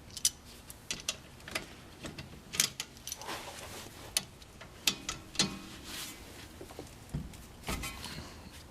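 Scattered metallic clicks and knocks of a socket wrench and an open-end wrench being fitted to a brake caliper's mounting bolt and nut and worked to break the bolt loose.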